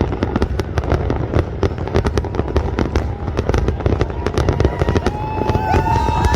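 Fireworks going off, a fast run of sharp cracks and bangs over a deep rumble. About five seconds in, high whistling tones that slide up and down join the bangs.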